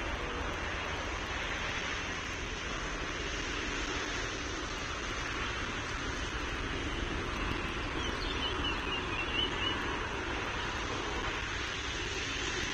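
Steady rushing outdoor noise picked up by the nest-cam microphone, with a brief run of faint, high bird chirps about eight seconds in.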